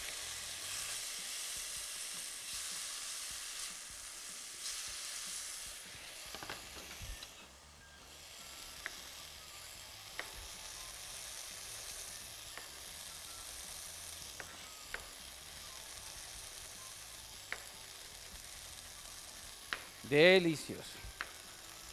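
Chopped peeled tomatoes sizzling in hot oil in a stainless steel pot, the sizzle loudest for about the first six seconds after they go in, then settling to a quieter steady sizzle. A few faint taps sound over it.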